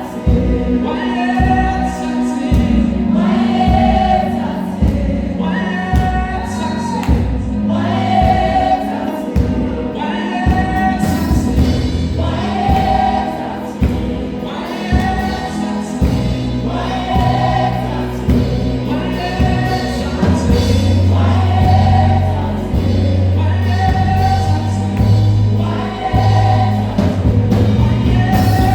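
Gospel choir singing over a sustained low accompaniment that swells in the second half.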